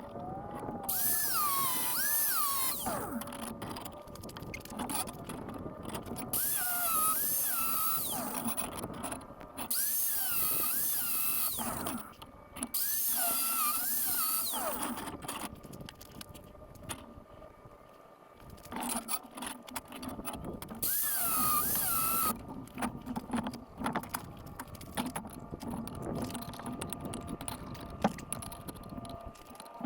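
Angle grinder cutting steel rebar in several bursts of a second or three, its whine rising and falling as the disc bites and is eased off.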